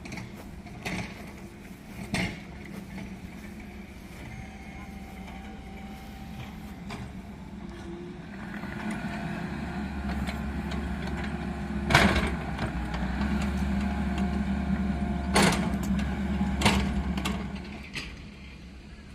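A machine's engine running steadily, growing louder partway through and easing off near the end, with a few sharp knocks while it is loudest.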